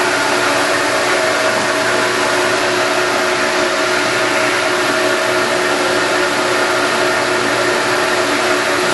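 Leblond Regal toolroom lathe running under power, its geared headstock giving a steady whir with a few held tones over a hiss. It sounds smooth and healthy: "sounds great".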